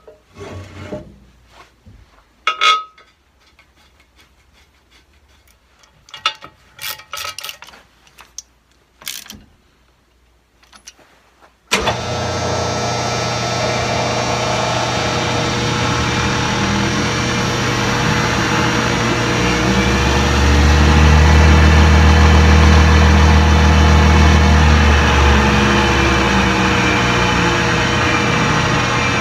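A few faint clicks and knocks, then about twelve seconds in a Powermatic 90 wood lathe starts running with a steady motor hum. The hum grows louder and fuller in the middle and eases back near the end as the speed handle is worked, changing speed through the lathe's variable-speed pulley drive.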